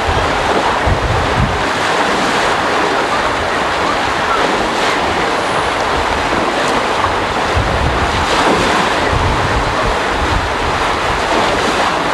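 Water rushing steadily out of the bottom of a water slide into its splash pool, with wind buffeting the microphone in uneven low rumbles.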